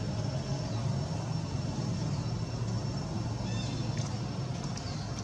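Steady low outdoor rumble, like distant motor traffic, with a few short, high bird chirps, one of them about three and a half seconds in.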